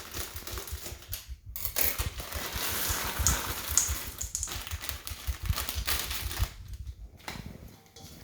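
Chocolate chips being added to cookie dough in a mixing bowl: a dense, irregular patter of small clicks and soft knocks, with short lulls.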